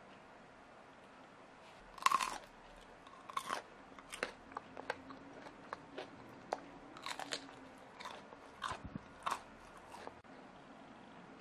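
Crisp sweet potato pieces with a hardened sugar coating (goguma ppaseu) being bitten and chewed. A loud crunching bite comes about two seconds in, followed by a string of sharp crunches that stop shortly before the end.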